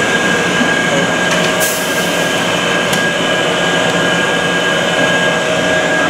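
Honey-extracting machinery running: the uncapping machine and extractor make a steady, loud mechanical din with a constant high-pitched tone in it. Two short clicks come about a second and a half and three seconds in.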